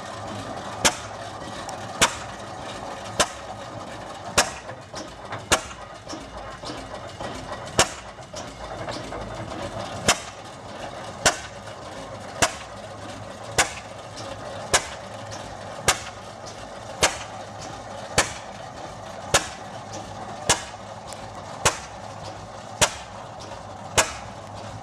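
Vintage steel-wheeled tractor's engine idling slowly, with a sharp exhaust crack about once a second, very evenly spaced, over a steady low running noise.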